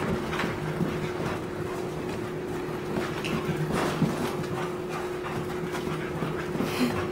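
Bullmastiff puppy playing, with scattered knocks and scuffles over a steady background hum.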